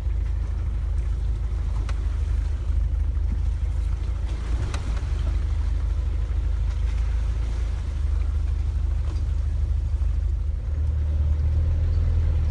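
A 4x4's engine running slowly under light load, heard from inside the cabin as a steady low rumble, with a few sharp knocks and rattles as it crawls over the rough track. The rumble grows louder near the end.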